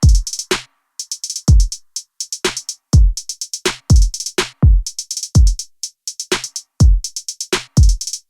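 Electronic background music with a drum-machine beat: deep kick drums that drop in pitch, about one or two a second, with quick runs of hi-hat ticks between them.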